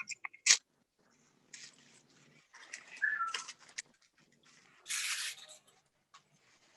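A parrot gives a short whistled call about three seconds in, between soft rustles and crinkles of paper cupcake liners being handled.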